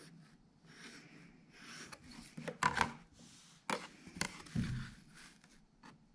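Tailor's chalk scraping in short strokes along a pattern master ruler on jacket canvas, marking a seam allowance, with a few louder rubs and knocks around the middle as the ruler is shifted on the cloth.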